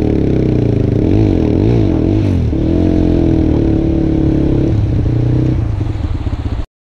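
Motorcycle engine running and being revved, its pitch rising and falling several times, then held higher before dropping back. The bike is stuck in a shallow river crossing and will only start in neutral. The sound cuts off abruptly near the end.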